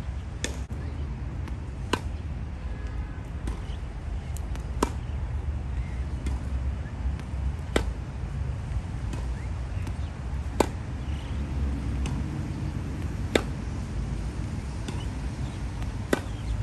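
Tennis rally: a racket strikes the ball with a sharp pop about every three seconds, with fainter ball hits and bounces in between. A steady low rumble runs underneath.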